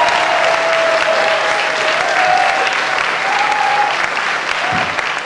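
Theatre audience applauding steadily, with some cheering voices over the clapping.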